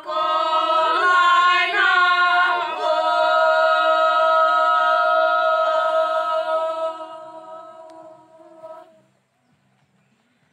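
A group of voices singing a Konyak song unaccompanied, in chorus. A few short notes open the phrase, then one long held note fades away and stops about nine seconds in.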